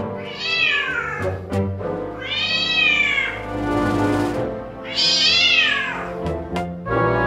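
A white Khao Manee cat meowing three times, each a long drawn-out meow that rises and then falls in pitch, about two seconds apart. Background music plays underneath.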